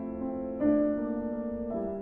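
Slow piano music, held chords changing about once a second: a new chord comes in about half a second in and another near the end.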